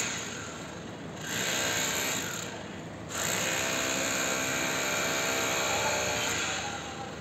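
Construction machinery running with a mechanical whir and rattle, in two stretches: a short one a little over a second in and a longer one from about three seconds in.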